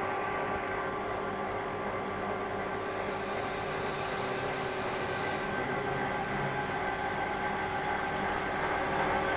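A machine running steadily, a hum with a whine of several steady tones, typical of a CNC machine tool. A short hiss comes in about three and a half seconds in and lasts under two seconds.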